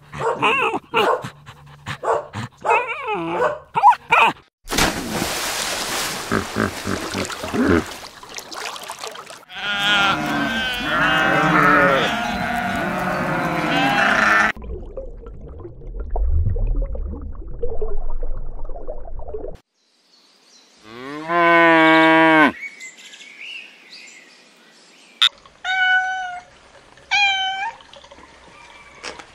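A run of short animal clips: a dog barking at first, then goats bleating for several seconds, then one long animal call, and near the end a cat meowing twice.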